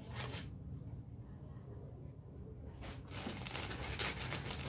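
Low room hum, then from about three seconds in a clear plastic garment packet crinkling and rustling as it is handled.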